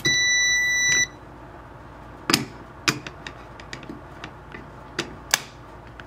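Keypad sounding one steady, high beep of about a second as the entered code is accepted and the lock output is triggered. It is followed by a handful of sharp, separate clacks and knocks from the magnetic lock's metal armature plate being handled once the lock has released.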